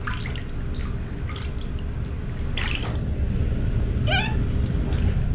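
Water splashing and dripping in a plastic basin as a baby monkey is washed by hand, over a steady low rumble. One short, high, wavering squeak about four seconds in.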